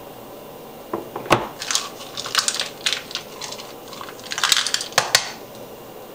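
Dark chocolate chunks clinking in a small ceramic ramekin and dropping onto a crumbly graham-cracker crust in a metal springform pan, with crackly rustling as fingers press them into the crumbs. A few sharp clicks about a second in and again near the end, where the ramekin knocks against the counter.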